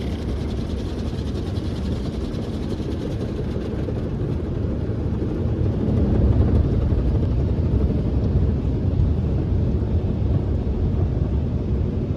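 Automatic car wash machinery running, heard from inside the car's cabin: a steady low rumble that grows louder about six seconds in.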